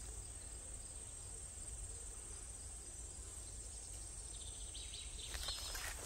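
Insects droning in a steady, high-pitched, even buzz from the summer vegetation. Footsteps rustle through grass near the end.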